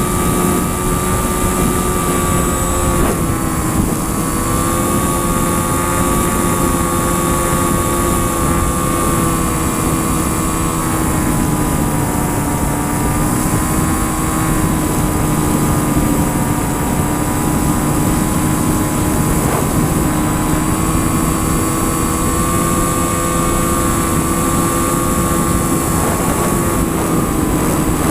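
Aircraft engine running steadily in flight: a loud, continuous drone whose pitch drifts slowly up and down, over a steady rush of noise.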